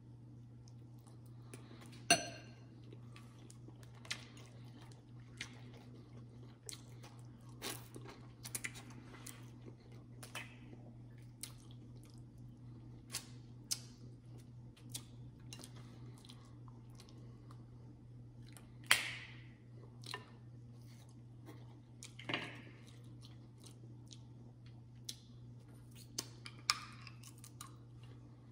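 Close-up chewing and wet mouth sounds of someone eating pasta, with short smacks and sharp clicks scattered throughout, the loudest about 2, 19 and 22 seconds in. A steady low hum runs underneath.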